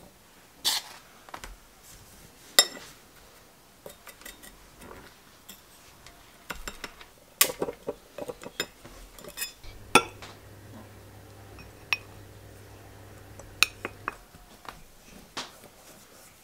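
Wooden spoons knocking and scraping against stemmed glass dessert cups and ceramic bowls: a string of separate sharp clinks and knocks as biscuit crumbs and chopped strawberries are spooned into the glasses.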